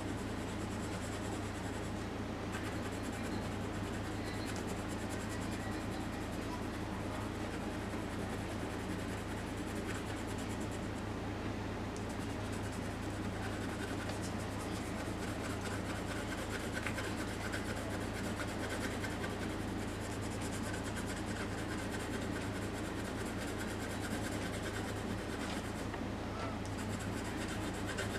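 Graphite pencil rubbing and scratching on drawing paper in steady shading strokes, over a steady low hum.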